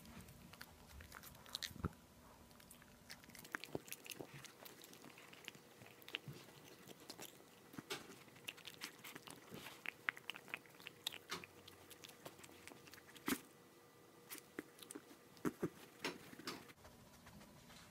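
Boston terrier gnawing on a boiled pork rib bone: irregular wet crunches and clicks of teeth on meat and bone.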